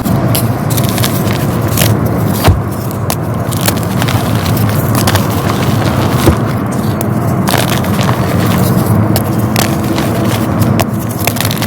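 Dyed gym chalk being crushed: a dense, continuous crunching and crackling with many crisp cracks, and two louder snaps at about two and a half and six seconds in.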